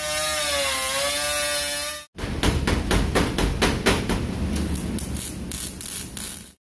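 Small handheld grinder cutting into a van's steel body panel, a steady high whine with a bright hiss of grinding that dips in pitch for a moment as it bites and then recovers. After a break, a MIG welder tack-welding the panel seam gives a run of short, sharp, irregular crackles.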